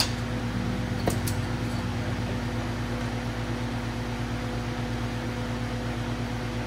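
Steady machine hum with an even hiss beneath it. A sharp pop comes about a second in as an oxy-acetylene torch is lit.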